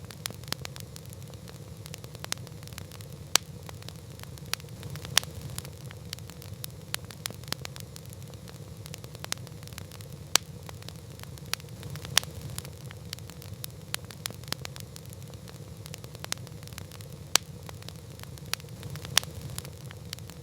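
Wood campfire crackling: irregular sharp pops and snaps over a steady low rumble of the burning fire.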